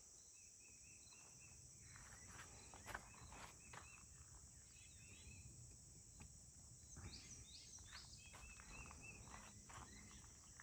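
Faint outdoor ambience of insects chirring steadily, with a few short chirps and a single soft click about three seconds in.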